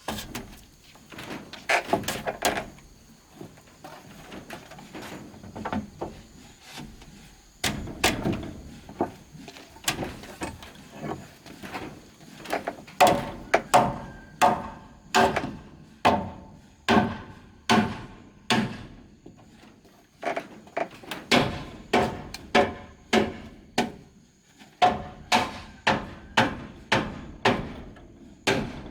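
Wood or bamboo being struck by hand in a series of sharp, ringing knocks. They are scattered at first, then settle after about twelve seconds into a steady run of roughly one and a half blows a second, with two short pauses.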